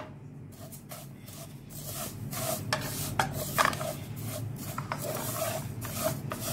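Wooden spatula stirring and scraping crushed vermicelli as it fries in butter in a nonstick pan: a dry rasping in short, irregular strokes, about two or three a second.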